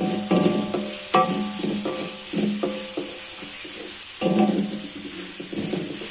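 Background music with struck, piano-like notes, over the sizzle and scrape of a wooden spatula stirring carrot strips in hot oil in an aluminium wok.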